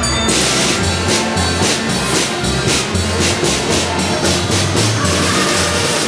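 Band music with drum kit and bass: the drums and full band come in about a third of a second in, with cymbals struck on a steady beat over a moving bass line.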